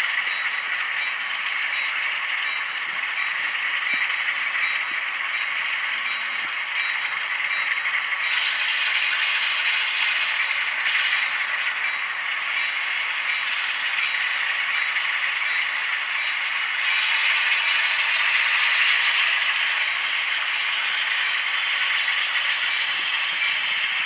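HO scale Atlas RS-11 model locomotive running slowly through yard switches, its TCS WOW sound decoder playing a rattling Alco diesel engine sound through the small roof-mounted speaker, mixed with the wheels clattering over the track. The sound turns brighter about a third of the way in and is loudest a little past the middle.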